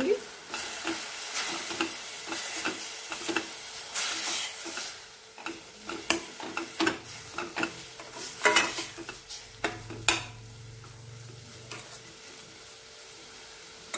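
A metal spoon stirring and scraping chopped fenugreek leaves and gram flour around a stainless steel pan, over a light sizzle of frying. The scraping strokes come thick and irregular at first and thin out, quieter, for the last few seconds.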